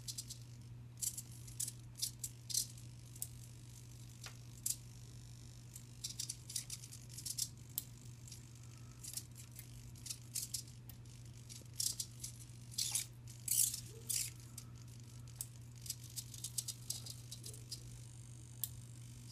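Irregular plastic clicks and rattles of PS3 controller buttons being pressed, some single and some in quick clusters, over a steady low hum.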